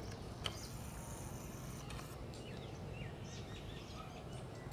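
Cuckooshrike giving a few faint, short calls over a steady low background rumble, with one sharp click about half a second in.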